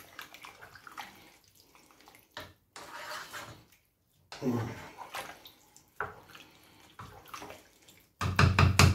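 A thick vegetable-and-mince stew being stirred hard in a pot with a wooden spoon: wet squelching and scraping in uneven strokes, with a louder stretch near the end.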